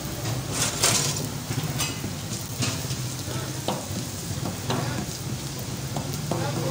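Lachha parathas frying on a large flat griddle (tawa), sizzling steadily, with metal tongs clicking and scraping against the griddle several times as the breads are turned and moved.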